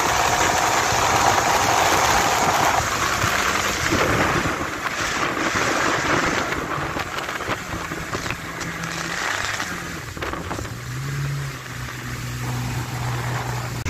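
Yamaha 242 jet boat under way: a loud rush of wind and water with a steady whine over it. The rush fades after about four seconds, leaving the low, even hum of the engines.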